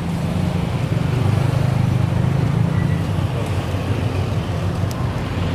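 Steady low rumble of road traffic, with an engine running.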